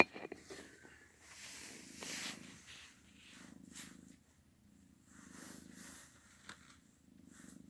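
Domestic cat purring: a soft low rumble in swells of about a second, with short breaks between breaths, and a little rustling near the start.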